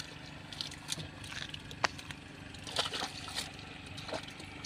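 Scattered short splashes and knocks of a hand net working in a shallow muddy pool, with one sharp click about two seconds in.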